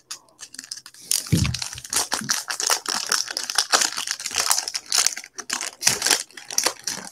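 Gold metallic foil wrapper of a trading-card pack being torn open and crinkled by hand, a continuous crackling rustle.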